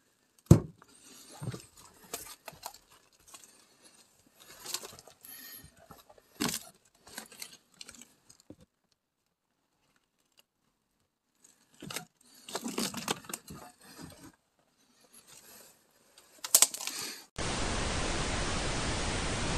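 Scattered knocks, clicks and scuffs of someone handling objects and moving about, the sharpest a knock about half a second in. Near the end it cuts suddenly to a steady TV-static hiss.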